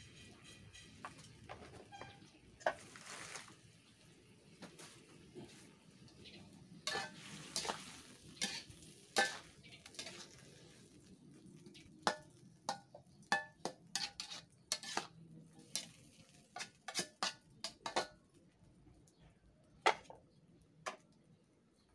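Metal spatula scraping and clanking against a wok while stir-frying water spinach, with food sizzling in the pan; the strokes come in quick runs through the middle. Near the end an aluminium lid is set on the wok with a single clank.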